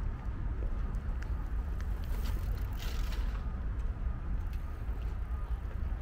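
Steady low outdoor rumble with a few faint clicks, and a brief rush of hiss about two to three seconds in.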